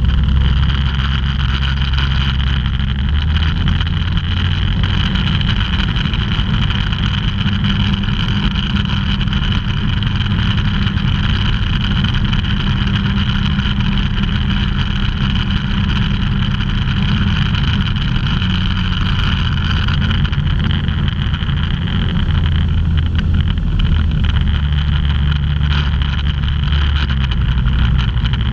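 Ultralight aircraft's engine and propeller droning steadily in flight, heard from inside the open-framed cockpit with airflow noise, the low drone shifting slightly a few times as the power changes.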